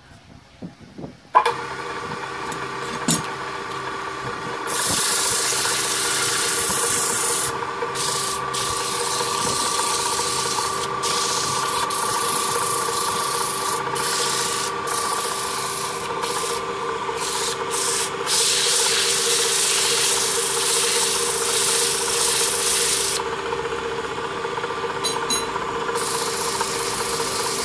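Sandpaper held against a wooden disc spinning on an electric wood lathe: a steady rubbing hiss over the motor's hum, broken several times where the paper lifts off. The motor's hum comes in with a sharp click about a second in, and the sanding starts a few seconds later.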